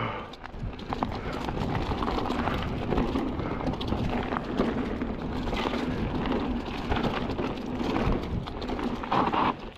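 Kellys Swag 50 enduro mountain bike rattling down a rough dirt trail: tyres rolling over dirt and roots, with a steady clatter of knocks from the chain and frame.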